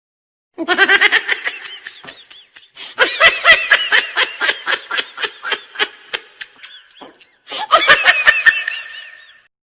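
Laughter sound effect: three bursts of quick, pulsing laughter, the middle one the longest.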